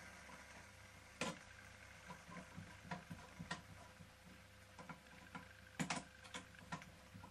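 Faint, irregular clicks and light taps of small metal toy steam engine parts being handled, with a sharper click about a second in and a cluster of louder clicks near six seconds, over a faint steady hum.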